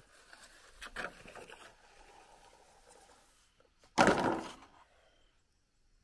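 A long green bamboo pole dropped onto a pile of bamboo poles: one loud, sudden wooden clatter about four seconds in that dies away within about half a second. Before it, softer rustling and a light knock about a second in.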